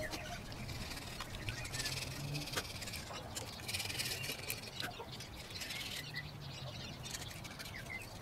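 Hand gasket scraper with a carbide blade scraping old head-gasket residue off the deck of a Toyota 1KZ-TE diesel cylinder block: a few spells of short rasping scratching strokes with light sharp ticks.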